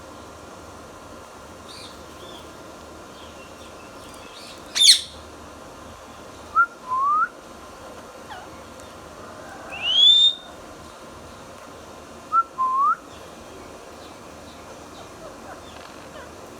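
Indian ringneck parakeet whistling and calling: one sharp shriek about five seconds in, then short rising whistles, a low pair heard twice and a higher one in between.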